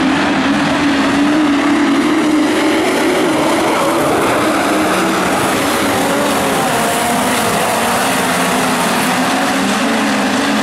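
Midget speedway race car engines running loud on the track, their pitch wavering up and down as the cars lap.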